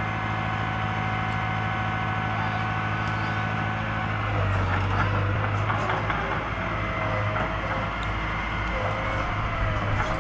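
Small crawler bulldozer's diesel engine running with a steady drone. About four seconds in, the note deepens and strengthens as the machine works, and a wavering higher tone comes in over it.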